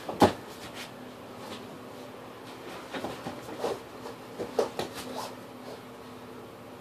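Grapplers' bodies thumping and scuffling on foam mats: one sharp thud just after the start, then a run of smaller knocks and shuffles a few seconds later.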